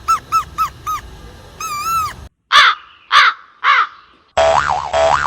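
A blade of grass held between cupped hands and blown as a whistle: five short arched squeaky notes in quick succession, then a wavering note. Then three loud harsh crow caws about half a second apart, and a warbling sound that swoops up and down in pitch near the end.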